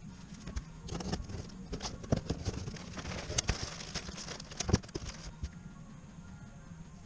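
Gloved hands rustling a paper shop rag and plastic packaging while handling a small engine part on a workbench, with scattered light clicks and one sharper click about two-thirds of the way through. A low steady hum sits underneath.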